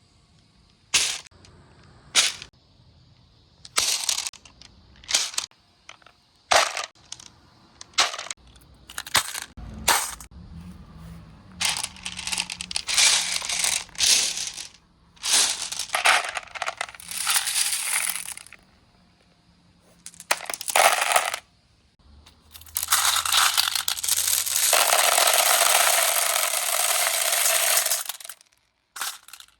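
Glass marbles clacking and rolling down a marble run. The first ten seconds hold separate sharp clicks, then come stretches of rattling roll, the longest lasting about six seconds near the end.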